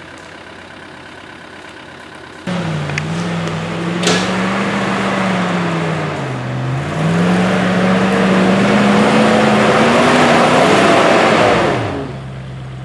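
Land Rover 4x4 engine revving hard under load as it climbs a slippery mud slope, with a rushing noise of spinning tyres. It comes in suddenly about two and a half seconds in, the revs rising and falling, with a sharp knock around four seconds. Near the end the revs drop away to a steady, lower running sound.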